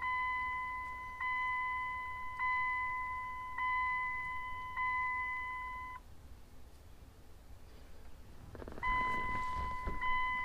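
Dashboard warning chime of a 1999 Dodge Ram 2500 going off with the ignition key just turned on: one chime about every 1.2 seconds, each fading away, five in all, stopping about six seconds in. Near the end a hiss comes in together with another steady tone.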